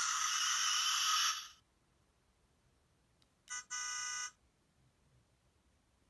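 Electronic sound effects from the small built-in speaker of a Tomica Kizuna Gattai Core Granner Saber Grip Blizzard toy car, heard as it is switched on. First comes a thin, noisy burst lasting about a second and a half. After a pause, about three and a half seconds in, a short blip is followed by a brief buzzy electronic tone.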